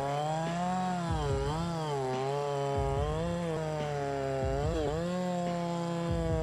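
Two-stroke chainsaw running and cutting, its engine pitch dipping and recovering over and over as the chain loads up in the wood.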